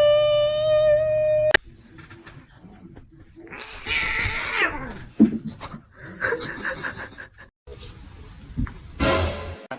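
A cat's long, drawn-out meow, rising and then held on one pitch, cut off abruptly about a second and a half in. Shorter, quieter cries and noises follow.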